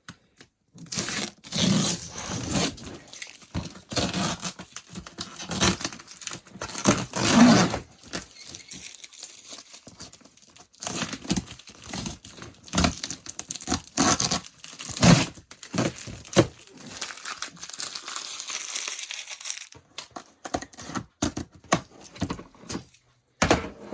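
Plastic bags and packing crinkling and rustling in irregular bursts as items are pulled out of a storage bin and unwrapped.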